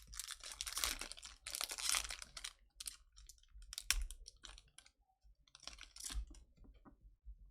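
Chrome trading cards being handled: two rustling swishes of about a second each as cards are slid and flipped, then scattered small clicks and taps, and a softer swish near the end.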